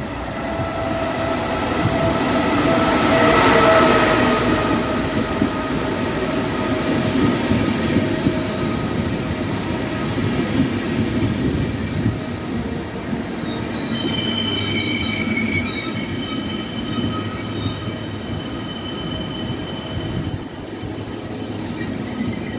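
Train moving through a station. Its running noise swells to a peak about three seconds in and then eases off, with steady high-pitched whining tones in the later half.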